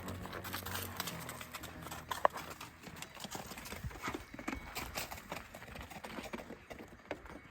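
Livestock hooves clopping in an irregular run of short knocks as animals walk.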